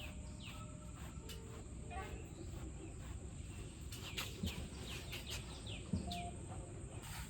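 Outdoor ambience: birds giving repeated short, falling chirps, busiest about four to five and a half seconds in, over a steady high insect buzz and a low rumbling background noise.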